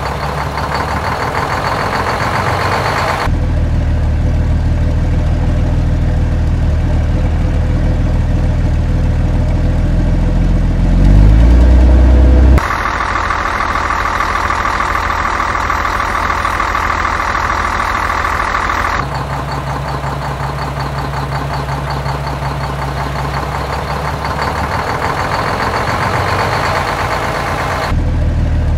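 Recorded truck engine sound, idling and running steadily with a low hum, changing abruptly several times as segments are cut together. About eleven seconds in it revs up briefly and grows loudest, then a stretch with a higher, whinier tone follows.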